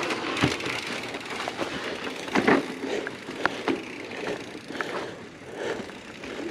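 Mountain bikes riding down a dirt singletrack: tyres rolling over dirt and leaf litter, with scattered clicks, knocks and rattles from the bikes going over roots and bumps.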